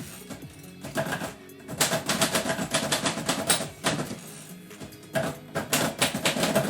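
Manual typewriter keys being struck in quick bursts of typing, three runs of rapid clacks with short pauses between them. Background music plays underneath.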